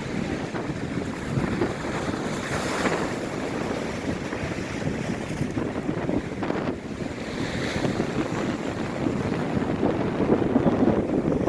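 High surf breaking on the beach, with strong wind buffeting the microphone; the waves surge in and wash away a few times.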